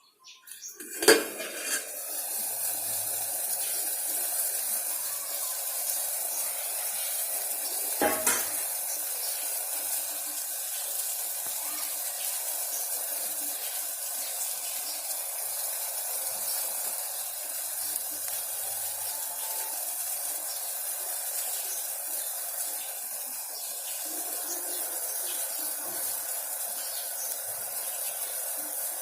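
A metal pan clanks about a second in and again about eight seconds in, and between and after the clanks a steady sizzling hiss comes from the pan cooking on the stove.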